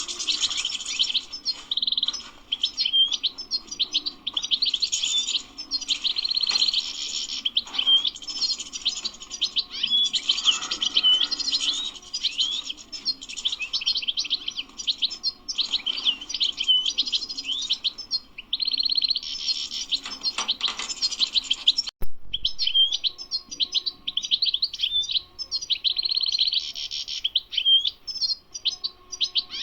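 European goldfinch singing a long, fast twittering song of rapid chirps and trills, with a brief break about two-thirds of the way through.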